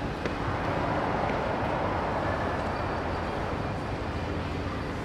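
Steady outdoor city ambience: an even rumble of distant traffic with no single event standing out.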